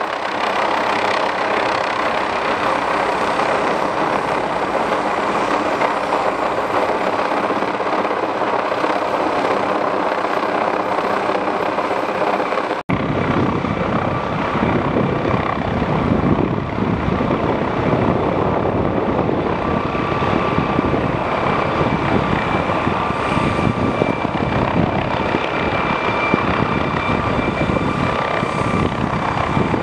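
McDonnell Douglas MD 902 Explorer twin-turbine NOTAR helicopter flying overhead, its five-bladed main rotor and turbines making a steady, continuous noise. Just before halfway the sound drops out for an instant and comes back with more low rotor rumble and a steady high turbine whine.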